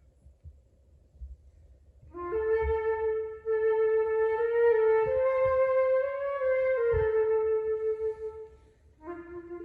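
Solo flute: after a rest of about two seconds, one long held note that shifts up a little in pitch and back down, then a lower note begins near the end.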